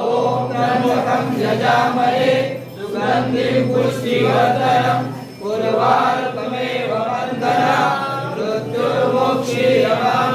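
Hindu devotional chanting to Shiva: several voices chanting together in a melodic line over a steady low drone, as a music track.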